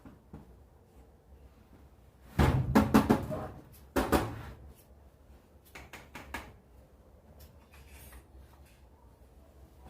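Clattering and knocking of hard objects being handled on a hard surface, in three short bursts, the first and longest about two and a half seconds in.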